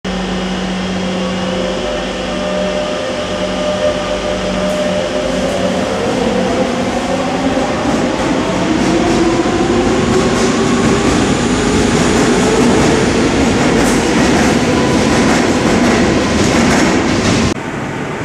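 Metro train pulling out of an underground station: the electric traction motors whine, rising steadily in pitch as it speeds up, over the rush of wheels on the rails, and it grows louder as it passes. Near the end the sound drops suddenly to quieter train noise.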